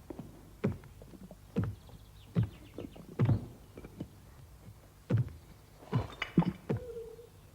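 A series of dull thumps and knocks, roughly one a second but irregular, with a quick run of light ticks about two and a half seconds in and a brief steady tone near the end.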